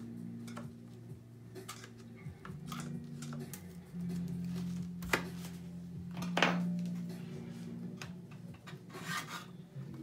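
Small metal hand tools clicking and scraping against a laptop's aluminium bottom case, a few sharp clicks with the loudest about six and a half seconds in, over soft background music.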